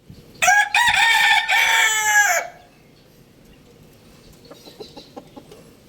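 A rooster crowing once: a loud cock-a-doodle-doo in three joined parts lasting about two seconds. Faint short sounds follow near the end.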